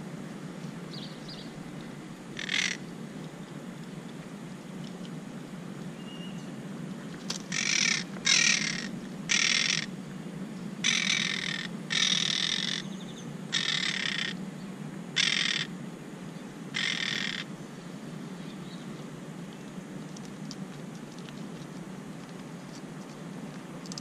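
Monk parakeets giving harsh, grating squawks: a single call, then a run of about eight a second or so apart that stops well before the end. These are alarm calls of parakeets disturbed at their nest.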